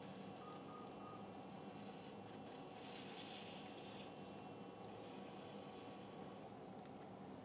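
Faint hissing of an electrosurgical (electrocautery) pencil cutting through tissue, in several stretches with short breaks, over a steady low hum of operating-room equipment.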